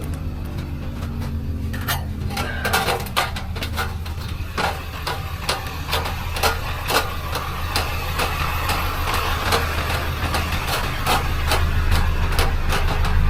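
A vehicle engine running steadily under frequent irregular clanks and knocks, which grow busier after about two seconds.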